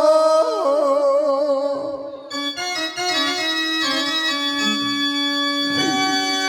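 Organ-like keyboard music: a wavering melody line, then held sustained chords from about two seconds in.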